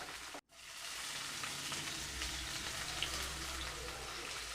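Chicken and brinjal pieces sizzling in hot oil and masala in a pan: a steady frying hiss with small crackles. The sound cuts out very briefly about half a second in, then the sizzling resumes.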